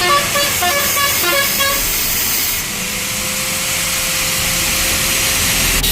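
Angle grinder cutting a steel motorcycle exhaust pipe, a steady hiss with a held motor tone from a bit over halfway in. A short tune of beeping tones sounds over it in the first two seconds.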